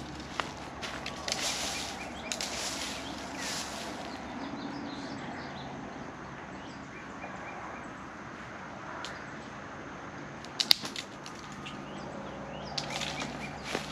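Brush and branches swishing and rustling as they are dragged and moved, in several bursts over the first few seconds and again near the end, with a single sharp click about three-quarters of the way through. Faint bird chirps between.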